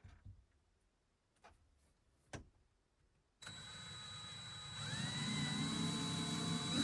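A few faint clicks, then about three and a half seconds in a power drill starts running, drilling a small hole into a truck's steering-column shift selector collar. A second or so later its pitch rises as it speeds up, then holds steady and grows louder.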